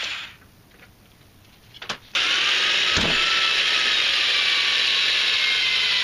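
Cordless drill with a small bit drilling a pilot hole through a solar panel's aluminium frame. It starts after a click about two seconds in and runs steadily under load, its pitch sagging slightly.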